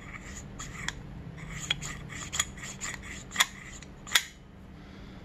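Small irregular metallic clicks and ticks as a Keihin FCR carburetor body is handled and turned over, with a few sharper clicks in the middle and near the end.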